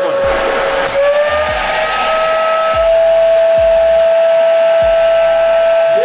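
Wet-and-dry vacuum cleaner running with a plastic bag holding a 2-litre bottle sucked onto its hose end, making a steady whistling whine over rushing air. The whine steps up in pitch about two seconds in and then holds.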